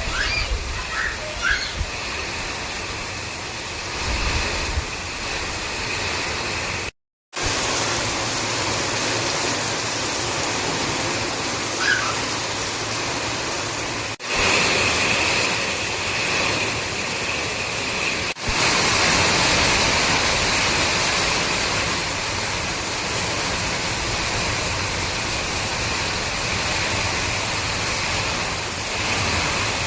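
Steady rain falling, a dense even hiss. It breaks off briefly at a few cuts and drops out completely for a moment about seven seconds in.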